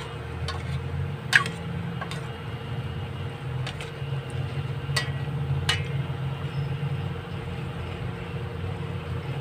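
A spatula knocks and scrapes against a stainless steel pan while chicken livers and gizzards are stirred. There are a few sharp clicks, the loudest about a second and a half in, over a steady low rumble.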